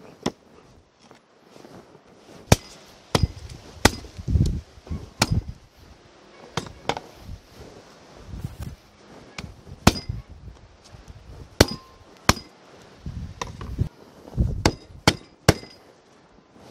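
A meat cleaver chops mutton on a wooden tree-stump block. Sharp chops come at irregular intervals, mixed with a few duller, heavier thuds.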